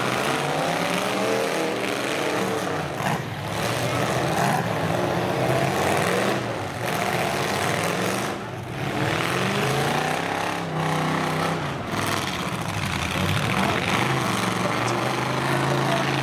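Demolition derby full-size pickup truck engines revving hard, their pitch climbing and falling again and again.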